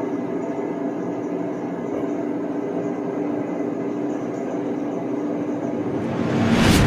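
Snack vending machine running a vend cycle: a steady motor hum as the spiral coil turns, then a short loud burst of noise near the end.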